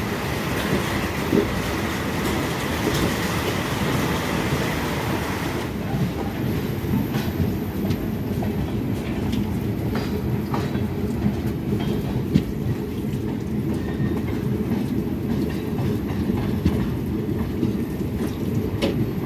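Passenger train running on the rails, heard from on board a coach: a steady low rumble with the clatter and clicks of wheels over the track. A hiss in the high range stops about six seconds in.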